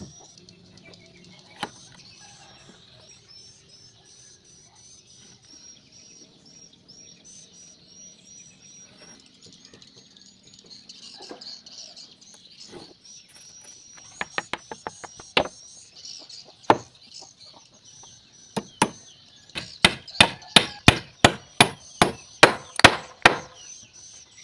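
Hammer blows on wood: a few scattered strikes, then a fast run of loud blows at about three a second near the end. Birds chirp steadily in the background.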